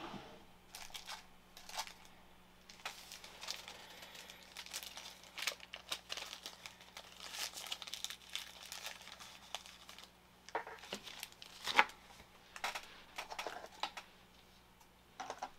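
Plastic card sleeve crinkling and rustling as a trading card is handled and slid into it, with scattered light clicks and one sharper click about twelve seconds in.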